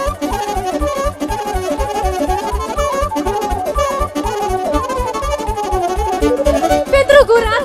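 Live Romanian folk dance music, a sârbă: a fast instrumental passage on lead instruments over a quick, steady beat, with no singing.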